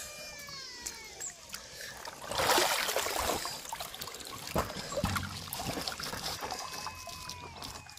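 Shallow river water splashing and dripping as a large, freshly caught fish is lifted and handled, with one loud splash about two and a half seconds in. A few thin falling calls sound faintly near the start and again near the end.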